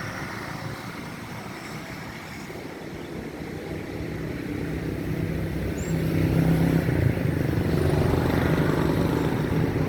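An engine running, growing steadily louder over the first six seconds as it comes closer, then holding loud and steady.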